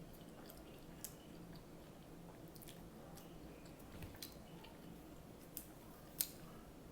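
Someone chewing a mouthful of egg roll, faint and wet, with a few short crunchy clicks, the loudest about six seconds in.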